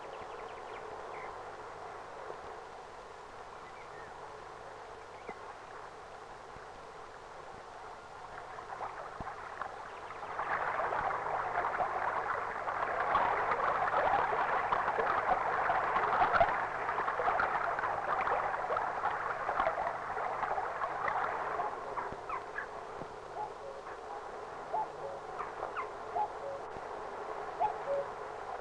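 Rustling and crackling of brush and dry leaves as a dog pushes through undergrowth. It is loudest for about ten seconds in the middle, then dies back to a faint rustle.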